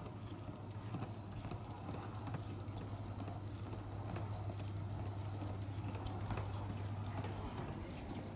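Wheeled suitcase rolling over a tiled floor: a steady low rumble from the wheels with irregular clacks as they cross the tile joints, along with footsteps.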